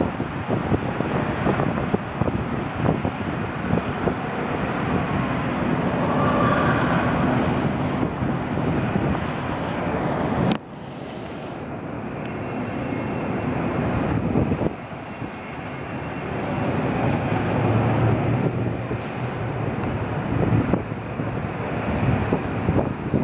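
Strong wind rushing and buffeting over the microphone, with a steady low city rumble underneath. The noise drops sharply twice, about ten seconds in and again about fifteen seconds in.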